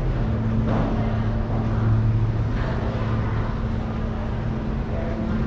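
Airport terminal hall ambience: a steady low mechanical hum, with a few soft footsteps on the hard floor.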